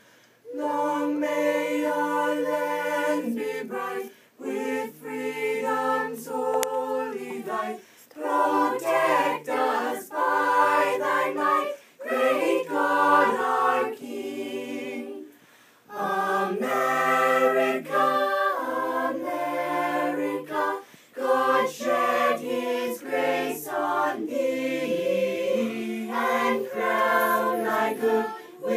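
Voices singing a cappella in harmony, in phrases a few seconds long with short breaks between them.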